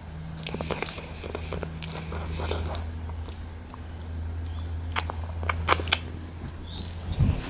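Close-up kissing and lip-smacking against a small dog's fur, a scatter of sharp little clicks and rustles, over a steady low hum.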